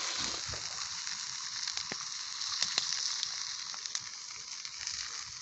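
Burger patties sizzling in a frying pan over a wood fire: a steady hiss with many short, sharp pops scattered through it.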